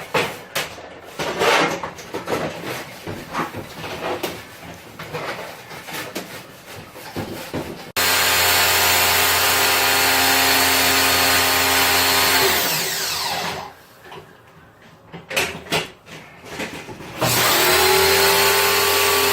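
Irregular knocking and rubbing of hands handling parts. After that, an electric motor of cleaning equipment starts abruptly and runs steadily, winds down with falling pitch, and starts up again near the end.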